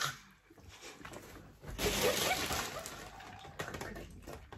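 Wet chewing and mouth noises of a person eating a sour sweet, a soft noisy smacking that grows louder a little under two seconds in.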